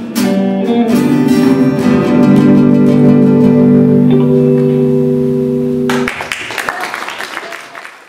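Electric and acoustic guitars play the closing chords of a rock 'n' roll number and ring out on a held final chord that is cut off about six seconds in. A short, noisy, crackling stretch follows and fades away near the end.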